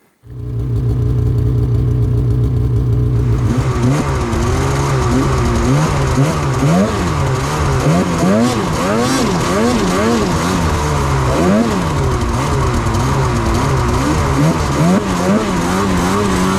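Snowmobile engine running steadily at first, then revving up and down over and over as it is ridden, its pitch rising and falling about once a second.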